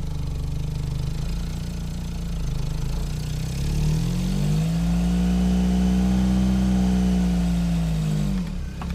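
Opel Calibra engine idling, then revving up about four seconds in, held for a few seconds and dropping back near the end, as the car is driven off the ramps it sat on for the oil change.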